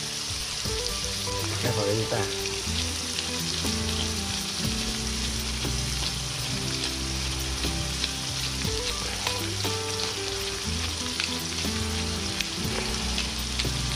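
Ground pork and onions frying in hot oil in a wok: a steady sizzling hiss with scattered small crackles.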